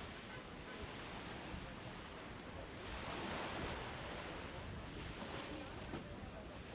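Small waves washing against a rocky shore and sea wall, a steady surf hiss that swells about three seconds in, with some wind.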